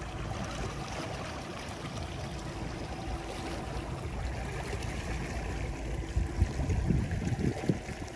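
A trolling boat moving slowly over calm water: a steady wash of water along the hull under a low motor hum, with a few low thumps near the end.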